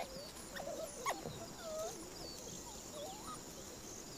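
African wild dog pups making soft, short high squeaks that rise and fall, scattered through, as the piled-up litter settles down after feeding.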